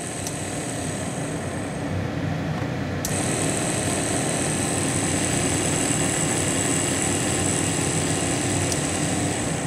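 Drive motor of a vintage GE 8-track player's tape mechanism spinning with a steady, noisy whir and a high whine, with a single click about three seconds in. The noise comes from the gummed-up mechanism, which needs oil.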